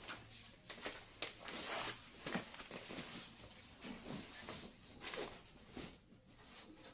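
Irregular rustling with light clicks and knocks: things being handled and moved about by hand.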